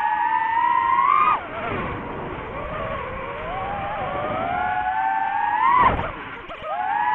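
DJI FPV drone's motors and propellers whining, the pitch climbing steadily under throttle and then dropping sharply twice, about a second in and near the six-second mark, as the throttle is cut. A short rush of air noise comes with the second drop, and the whine climbs again near the end.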